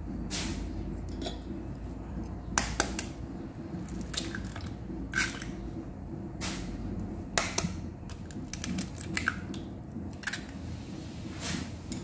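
Eggs being cracked on a stainless steel bowl: scattered sharp taps and clicks of eggshell against the metal, over a low steady hum.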